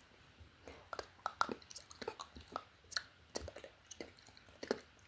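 Close-miked ASMR mouth sounds: irregular wet clicks and smacks of the lips and tongue, several a second.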